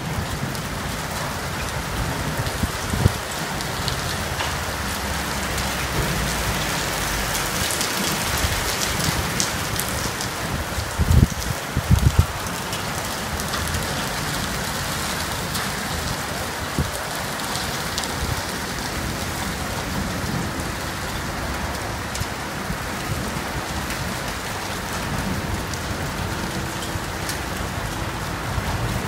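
Heavy rain mixed with hail pelting down steadily in a thunderstorm, a dense hiss with a fine crackle of impacts. A few short low thumps cut through it, one about three seconds in and two close together about eleven seconds in.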